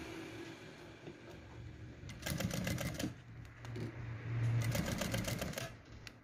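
Industrial sewing machine stitching in two short runs, about two seconds in and again around four and a half seconds, the needle making rapid ticking.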